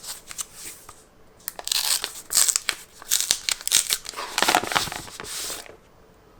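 Packaging of a tablet box being torn open and crinkled by hand: a few short rips and crackles, then a dense run of crinkling and tearing that stops abruptly about a second before the end.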